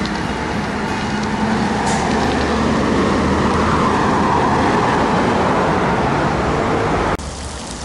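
Road traffic on a city avenue, with vehicles passing close by. The noise grows to its loudest around the middle and cuts off suddenly about seven seconds in.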